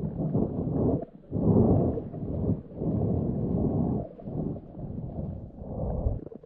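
Wind buffeting the microphone: muffled, low rumbling in gusts of about a second, with short breaks between them.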